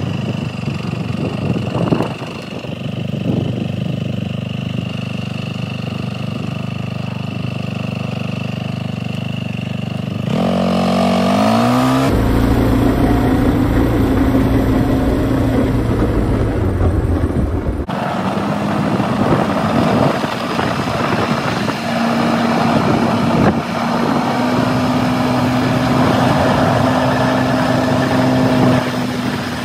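Kymco MXU 300 quad's single-cylinder engine idling steadily, then rising in pitch as it revs and pulls away about ten seconds in. After that it runs under way with wind and road noise, with a couple of abrupt jumps in the sound.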